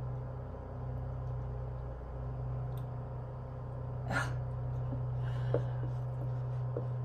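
A steady low hum throughout, with faint dry-erase marker strokes on a whiteboard and one short sharp sound, like a quick catch of breath, about four seconds in.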